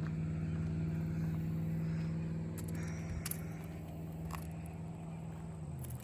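Car engine running with a steady hum, its pitch dropping a little near the end, with a few faint clicks.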